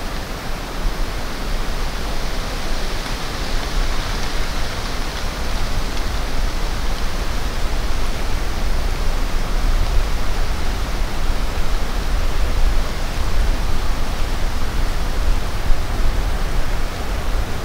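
A steady, even rushing noise with a low rumble underneath, swelling slightly a few seconds in.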